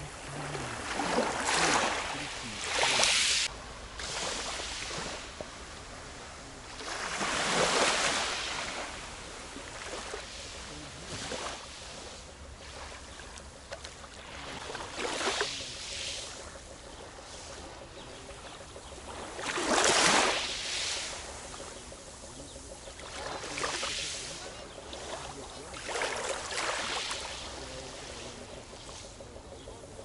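Small waves of a calm sea washing onto a fine-pebble shore: a soft hiss that swells into a louder wash every few seconds, at irregular intervals.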